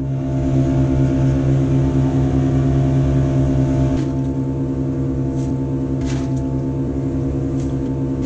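A wooden boat's engine running at a steady pitch, a low even drone. From about four seconds in, water sloshes and splashes several times as the flooded bilge is bailed with a plastic jerrycan.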